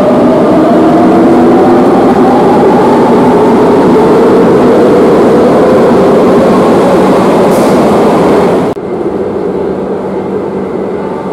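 Madrid Metro electric train pulling away, its traction motors whining as they slowly rise in pitch over a loud rush of wheel and track noise. About nine seconds in the sound cuts off abruptly to a quieter, steadier hum.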